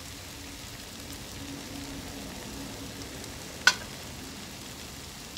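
Potatoes and tuna frying in a pan on a gas stove, a steady soft sizzle, with one sharp click about two-thirds of the way through.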